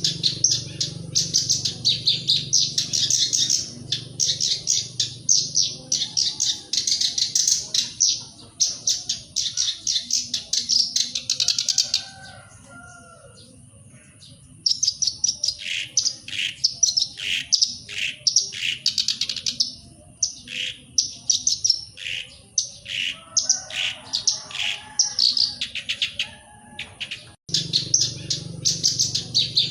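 Black-browed reed warbler singing: a fast, unbroken stream of notes that stops about twelve seconds in. After a pause of about two seconds it comes back as separate sharp notes, and near the end the fast stream starts again.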